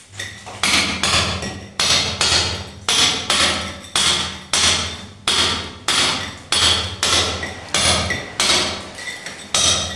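Steady hammer blows on the broken plaster and masonry around an exposed CPVC pipe, about two a second. Each blow is sharp and rings briefly.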